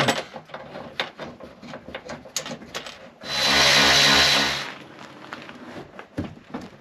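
Cordless electric ratchet running for about a second and a half, driving a bolt home into the steel frame of a storage box. Small clicks and knocks of metal being handled come before and after it.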